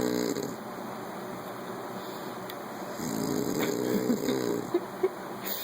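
A man snoring in his sleep: one snore tails off in the first half-second, and another lasting about a second and a half comes about three seconds in, followed by two short clicks.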